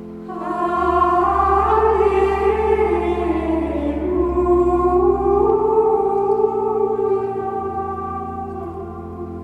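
Women's choir of Benedictine nuns singing a Latin Gregorian chant: one long, slowly winding sung line that comes in just after the start, over steady held low notes.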